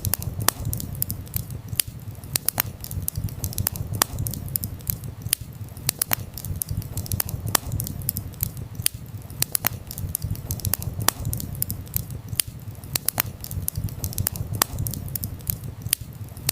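Wood campfire burning and crackling: irregular sharp pops and snaps, several a second, over a steady low rumble.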